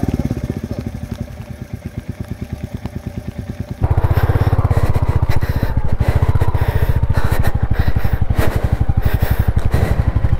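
Motorcycle engine running steadily with a rapid, even low thudding, which becomes abruptly much louder about four seconds in.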